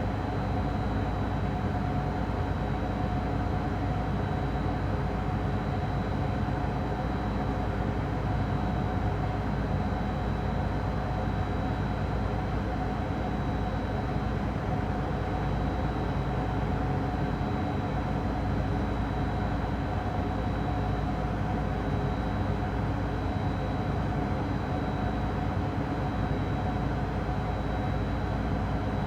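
Steady machinery-room drone: running machines with a deep rumble, a constant hum and a faint high whine, unchanging throughout.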